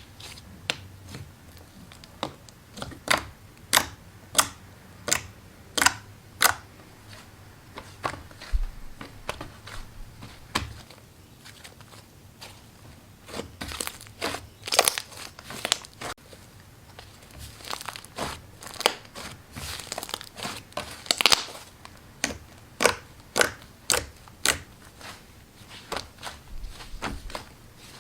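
Slime being squeezed and poked by hand, giving irregular sharp crunchy clicks and pops. The pops come in denser clusters about halfway through and near the end.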